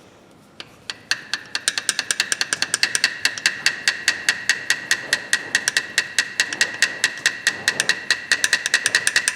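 Old rusty pliers worked rapidly open and shut by hand, their jaws and pivot clicking with a metallic ring about six or seven times a second, starting about a second in: the joint being freed up by use.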